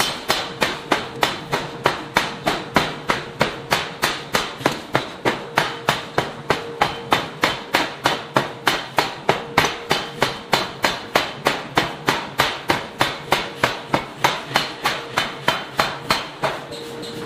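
Power forging hammer's ram striking a red-hot steel disc in a ring die: rapid, even blows about three a second, which stop shortly before the end.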